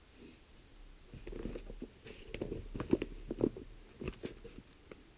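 Close handling noise of a rifle and its red dot sight: a run of soft clicks and rustles, loudest around the middle.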